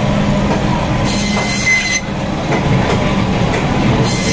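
Electric band saw (bone saw) running with a steady hum, its blade cutting through pangas fish with a high-pitched whine that comes in twice, about a second in and again near the end.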